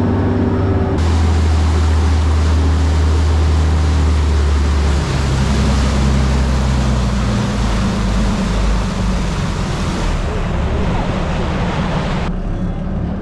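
Boat engine running at cruising speed with a steady low drone, under the rush of the churning wake and wind. The rushing noise comes in abruptly about a second in and drops away near the end.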